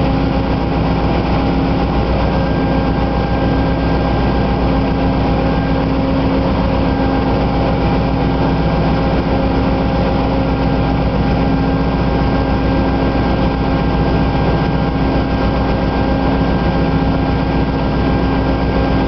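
GE P42 Genesis diesel-electric locomotive's 16-cylinder engine running at a standstill beside the platform, a loud, steady drone with a constant hum of several tones that does not change.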